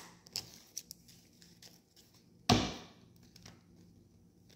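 Scattered light taps and clicks, with one louder knock about two and a half seconds in.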